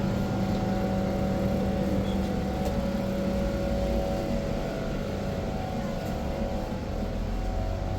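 An engine running steadily with an even hum, without clear revving.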